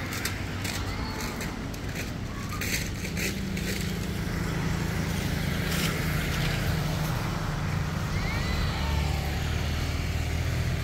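Low, steady engine hum of a motor vehicle, growing louder about three seconds in. A few sharp clicks come early on, and faint short high chirps come near the end.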